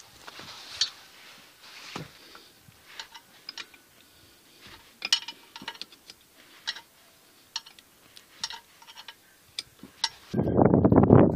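A small metal spanner clicking and scraping on the drain plug of a sprayer's water pump as the plug is loosened: a string of sharp, irregular metallic ticks, then a louder noise near the end.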